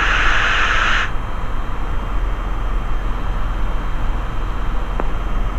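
The four-cylinder Lycoming engine of a Robin DR400/180 running steadily in cruise, heard as a drone through the cockpit intercom. A hiss cuts off suddenly about a second in, and a single click comes near the end.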